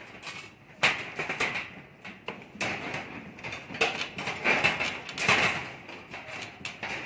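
Rebar being tied with tie wire and a hooked twisting tool: irregular metal clicks, taps and scraping of wire against the steel bars.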